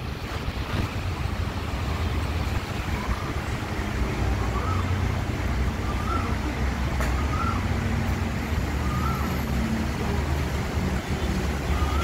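Steady low rumble with a short, rising-then-falling chirp repeated about every second and a half from about three seconds in.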